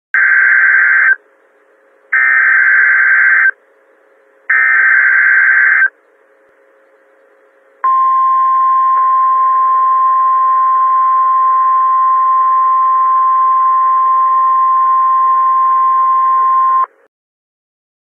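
Emergency Alert System tornado warning opening. Three loud digital SAME header data bursts, each about a second long with short gaps between, are followed by a single steady attention tone near 1 kHz that lasts about nine seconds and cuts off suddenly.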